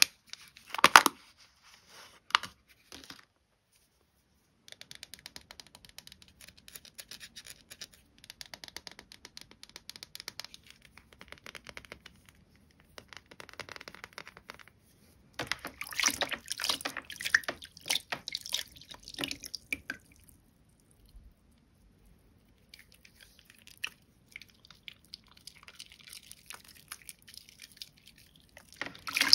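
Soaked, mushy Bio Mio bar soap being lathered into thick foam, giving wet squelching and fine crackling in bursts. There are a couple of short pauses, and the loudest stretch comes a little past halfway.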